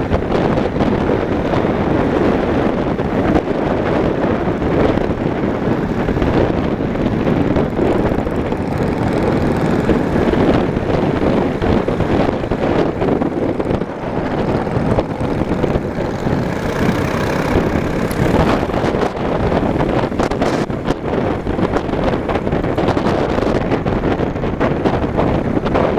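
Wind buffeting the microphone of a moving motorcycle, over the steady running of its engine.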